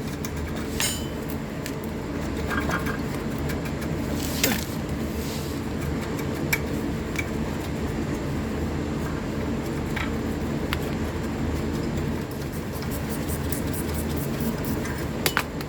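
Hand tools clinking and tapping against metal every second or few, over a steady low background hum.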